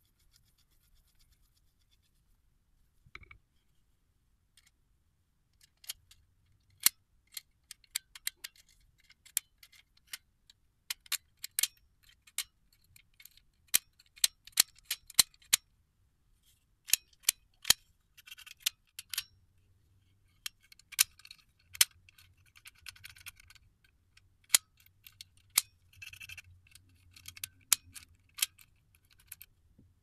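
Metal mortise door lock being worked by hand: many sharp, irregular metallic clicks and snaps of the lock mechanism, with some scraping of metal parts. The clicks start a few seconds in.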